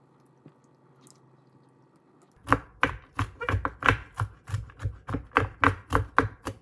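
Kitchen knife chopping mixed nuts (cashews, almonds, pecans) on a wooden cutting board, quick even strokes at about four a second, starting about two and a half seconds in.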